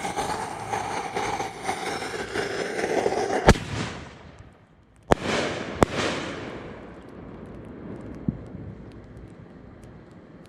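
A 6-inch double-break canister firework shell, with a rush of noise from the launch and flight, then a sharp bang about three and a half seconds in. Two more bangs follow close together a second and a half later, and each is followed by a long echoing rumble that fades with faint crackling.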